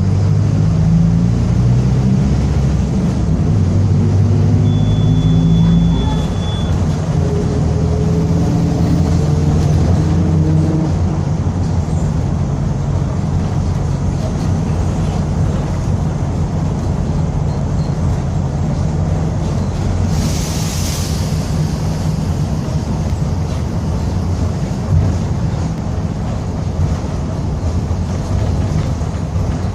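Mercedes-Benz OF-1722M city bus driving, its engine and drivetrain running with a growling differential. A few rising whines come about a third of the way in, and a short hiss comes about two-thirds of the way in.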